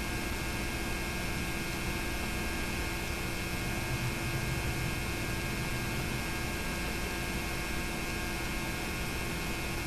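Steady electrical hum with several fixed tones over an even hiss, and nothing else: the background noise of a tape recording, here a VHS transfer of silent home movies.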